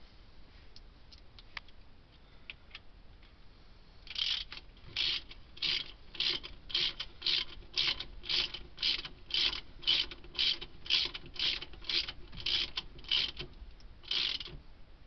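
Socket ratchet wrench clicking in quick back-and-forth strokes, about two a second, seating a cylinder head bolt; it starts about four seconds in and stops near the end.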